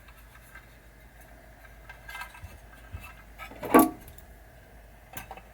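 Small parts clicking and rattling as a pinball machine's main fuse holder and its wiring are handled, with one louder, short clink a little under four seconds in.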